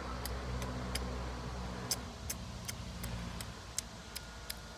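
A low, steady mechanical hum that fades about two seconds in, with scattered sharp ticks.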